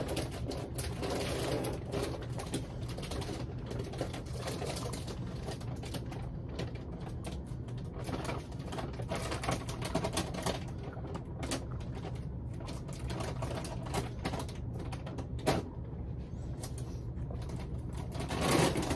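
A puppy chewing and crunching marrowbone dog treats: a fast, irregular run of small crunching clicks.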